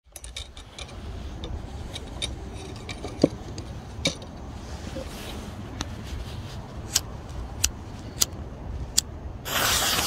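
Scattered light clicks and knocks of handling, then a loud hiss that starts about half a second before the end as a firework fuse is lit and sputters out sparks.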